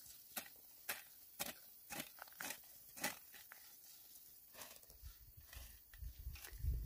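Hand hoe chopping and scraping into dry soil around the base of a young plant, sharp strokes about two a second. A low rumble comes up near the end.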